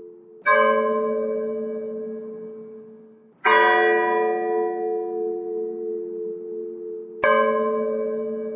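Church bell tolling slowly for a funeral: three strikes about three and a half seconds apart, each ringing out and fading before the next.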